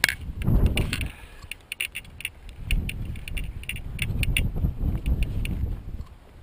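A long wooden binding rod being picked up and worked in along the stakes of a laid hedge: wood scraping and rustling against twigs and stakes, with many sharp clicks and snaps over a low rumble.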